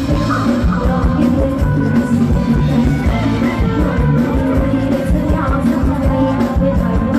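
Live band music with a steady drum beat and a singer's voice.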